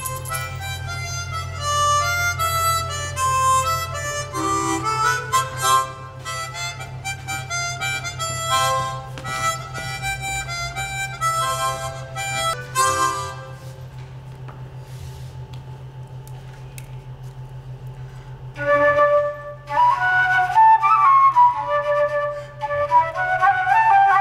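Harmonica playing quick chords and melodic runs over a steady low hum. It drops to a quieter stretch a little past halfway, then comes back louder near the end.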